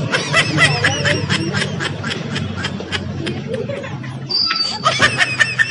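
A young woman laughing in a quick run of giggles, with a steady low hum underneath.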